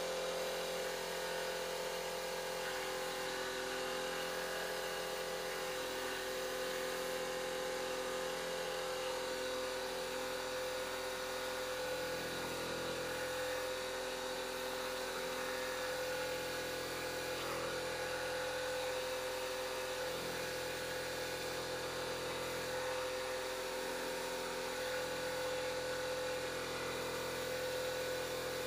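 Small airbrush air compressor running with a steady motor hum, under the even hiss of air from the airbrush spray gun.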